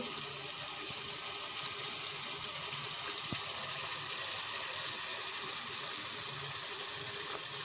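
Carrot-and-pea curry simmering in a wok, a steady soft sizzling hiss.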